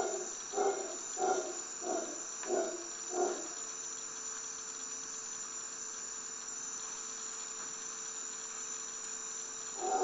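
Night-time tropical rainforest insect chorus, a steady high-pitched drone. In the first few seconds, six short low calls come about two a second.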